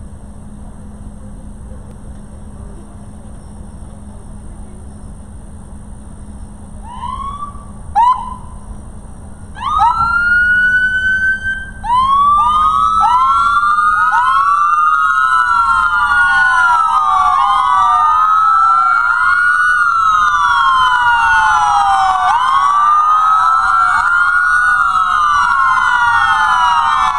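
Police car sirens. A few short rising chirps and a brief held tone come in about seven seconds in. Then, from about twelve seconds in, several sirens wail together out of step, their rising and falling tones overlapping.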